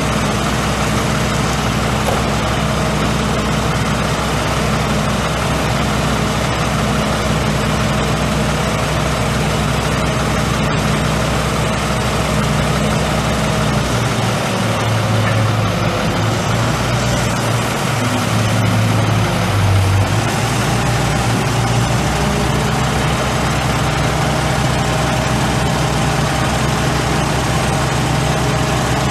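Heavy truck engine of a derrick digger truck idling steadily. For several seconds around the middle the engine note changes and swells briefly, then settles back to an even idle.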